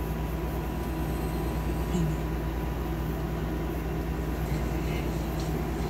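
A steady low hum and hiss, with a faint constant tone above it.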